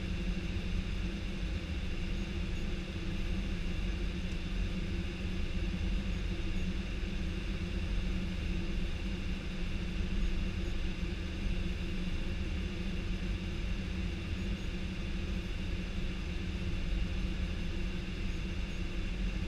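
Steady flight-deck noise of an Airbus A319 descending on approach: the rush of airflow and engine hum inside the cockpit, with a few steady tones running through it.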